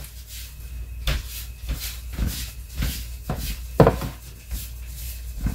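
Scattered knocks and clicks of things being handled in a kitchen, the loudest just under four seconds in.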